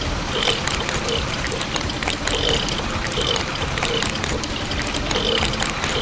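Wet cement mix pouring and trickling from a toy cement mixer's plastic chute, a steady wet pour with small clicks and spatters.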